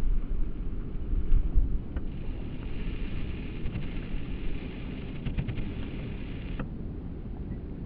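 Wind buffeting the microphone in a gusty low rumble. About two seconds in, a steady higher hiss joins it and cuts off suddenly near the end.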